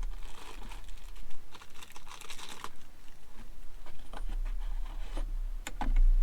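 Packaging for new Jeep hood catches crinkling and tearing as it is opened, followed by a few sharp clicks near the end.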